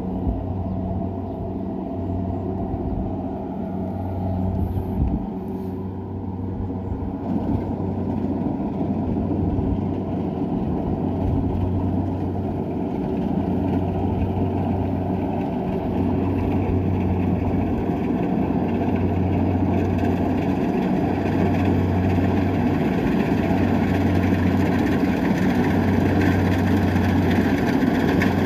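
Kubota DC-70 rice combine harvester's diesel engine running steadily while it harvests, growing gradually louder as the machine comes closer.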